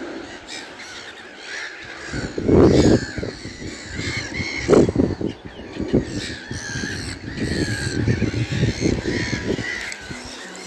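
Crows cawing in harsh bursts: one about two seconds in, another near the middle, and a run of caws towards the end. Smaller songbirds chirp throughout.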